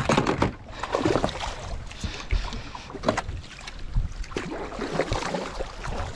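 Water splashing and sloshing against the side of a small fishing boat as a hooked musky is worked toward a landing net held in the water, with irregular knocks of gear against the hull and a low rumble of wind on the microphone.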